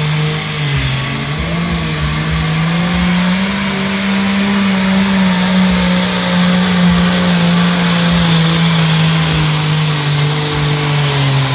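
New Holland Pro Stock pulling tractor's turbocharged diesel engine running flat out under the load of a weight-transfer sled. Its pitch climbs over the first few seconds, holds steady, then sags a little near the end as the sled's load builds.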